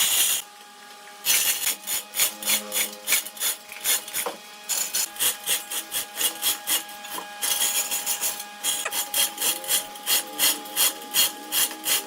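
A tool scraping on wood in rapid, even strokes, about three a second, with a short lull near the start. A faint steady whine runs underneath.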